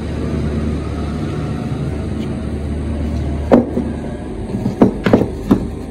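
A steady low hum, then a few sharp knocks and clicks from about three and a half seconds in as the metal pole saw gear head and its plastic housing are handled.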